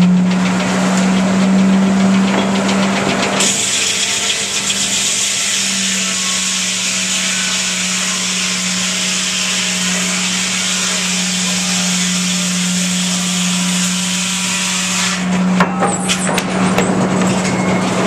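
Water-powered circular sawmill: the saw and drive run with a steady hum, and from about three seconds in the blade cuts through a log with a loud, continuous hiss that stops about three seconds before the end. A few sharp knocks follow near the end.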